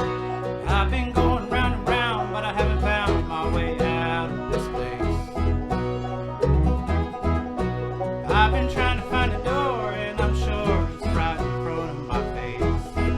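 Background music: an upbeat song with a steady beat and a bending melody line that comes and goes.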